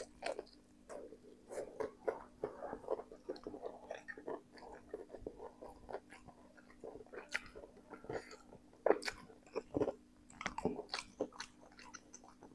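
Close-miked chewing and biting: wet mouth sounds and smacking from eating sambal-covered fried chicken and spicy instant noodles, with a few crunchy bites. The sounds come in irregular clusters, busiest about nine to eleven seconds in, over a faint steady hum.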